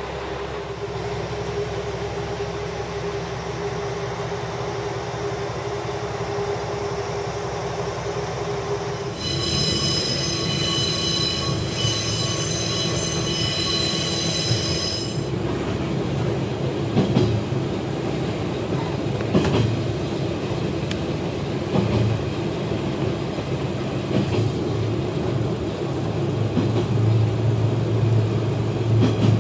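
Diesel railcar sounds: a steady engine hum, then a high-pitched squeal lasting about six seconds that stops abruptly, then a louder low rumble with a few sharp knocks as the railcar runs.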